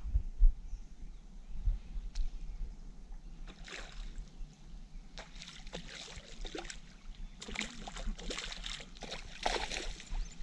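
A hooked fish thrashing at the surface beside a small boat, throwing up water in several bursts of splashing from about three and a half seconds in, with the landing net dipped into the water near the end. A couple of low thumps on the boat come in the first two seconds.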